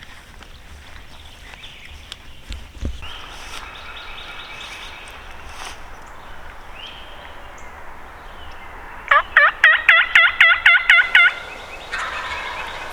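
Wild turkey calls: a gobble rattles out about three seconds in, a loud run of about nine yelps follows near the end, then another gobble begins.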